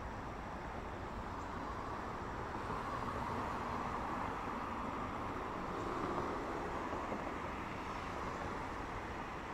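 Road traffic: cars driving past on a multi-lane road, a steady hiss of tyre and engine noise that swells in the middle as a couple of cars go by, then eases off.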